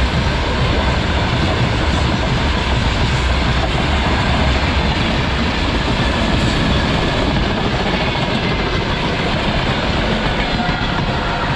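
Freight train wagons rolling past close by: a steady, loud rumble of steel wheels on rail, heaviest in the low end.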